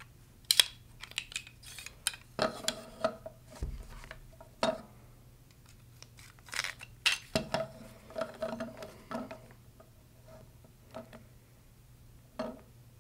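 Aluminum channel beam and plastic gear rack being slid through a small aluminum bracket assembly and handled on a wooden table: scattered clicks, knocks and light metallic clinks, with brief scraping as the parts slide.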